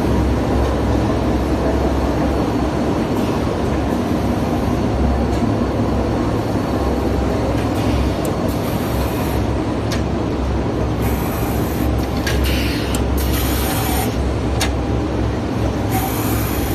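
Baby pull-up diaper production line running: a loud, steady machine din with a strong low hum. Several short bursts of hiss come in over it during the second half.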